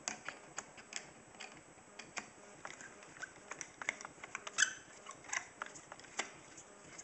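Screwdriver turning the large screw of a Goldmann tonometer R-type mount, tightening it in place: a run of small, irregular metal clicks and ticks, a few a second, with a short scrape about four and a half seconds in.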